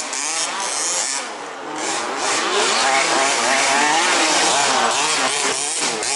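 Several 1/5th-scale off-road RC buggies' small two-stroke petrol engines racing together, each revving up and down as they accelerate and brake around the track. The engines get louder about two and a half seconds in.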